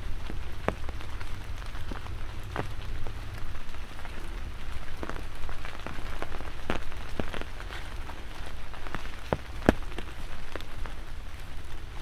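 Light rain falling steadily, with single drops landing close by as scattered sharp ticks, the loudest about ten seconds in. A steady low rumble runs underneath.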